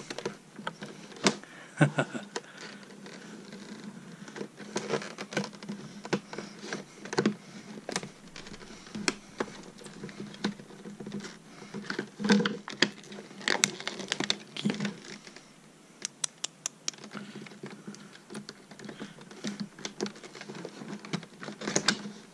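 Stiff plastic packaging on a calculator box being pried and picked at by hand: irregular clicks, scrapes and crackles as it resists opening, with a quick run of clicks about two-thirds of the way through.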